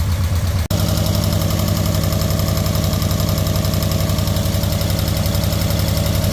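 Nissan 240SX four-cylinder engine idling steadily, firing on all four cylinders now that its cleaned fuel injectors are spraying again. A momentary break in the sound comes less than a second in.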